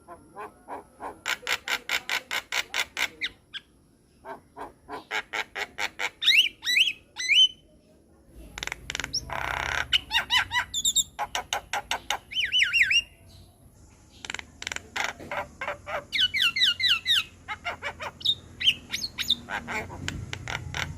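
Javan myna (jalak kebo) singing a varied song: runs of rapid harsh clicking notes, raspy squawks and repeated whistled glides that rise and fall.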